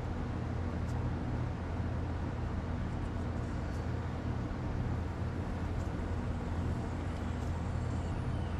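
Steady low mechanical hum with outdoor background noise, unchanging throughout.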